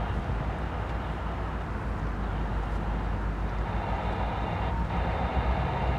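Diesel locomotive engine running at a distance: a low, steady sound that grows stronger near the end, as exhaust smoke rises from the locomotive.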